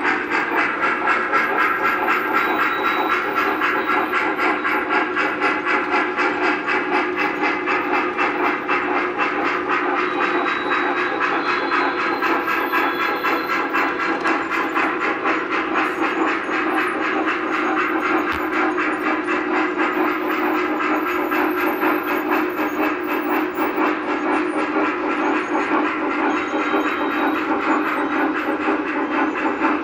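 Lionel O gauge model steam locomotives running on three-rail track. Their wheels and motors make a steady running noise, with fast, even chuffing from the locomotives' RailSounds steam sound.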